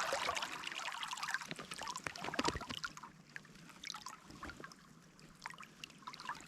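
Stream water splashing and trickling around someone wading through it, many small irregular splashes that thin out about halfway through.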